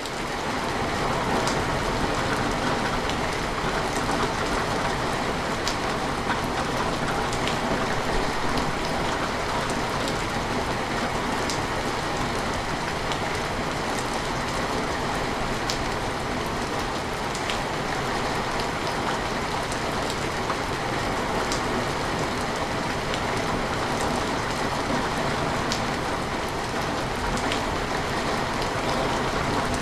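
Steady rain falling on window glass, an even hiss with scattered individual drops ticking against the pane.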